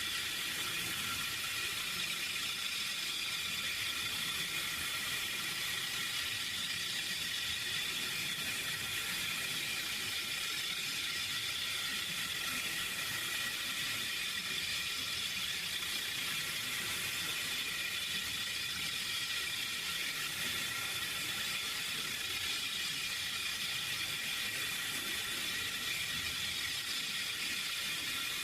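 Steady synthetic hiss with several held high tones running through it, an unchanging sound effect made with the Vocodex vocoder plugin.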